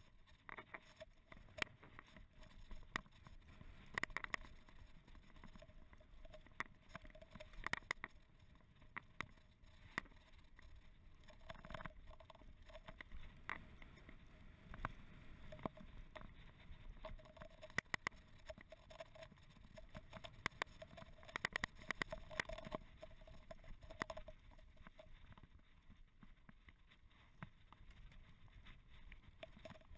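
Mountain bike coasting down a bumpy grass track: faint rattling and frequent sharp clicks and knocks from the bike over the ground, over a low rolling noise from the tyres.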